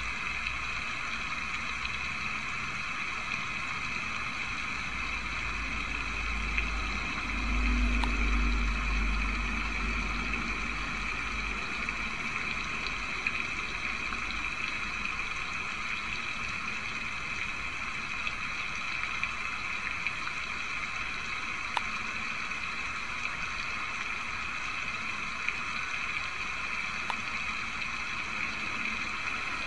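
Steady rushing noise that does not change, with a low rumble that swells about seven seconds in and fades out a few seconds later, and a few faint ticks.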